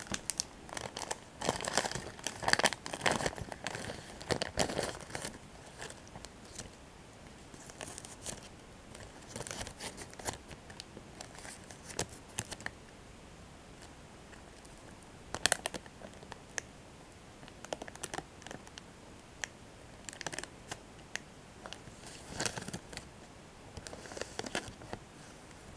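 Kit Kat wrapper crinkling and tearing as it is opened by hand: a dense run of crackles in the first few seconds, then scattered sharp snaps and short bursts of crinkling.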